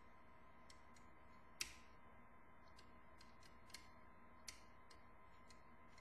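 Faint, irregular small metallic clicks of a pick lifting the levers of a Union five-lever curtain deadlock held under tension, with one sharper click about one and a half seconds in. A steady faint hum lies underneath.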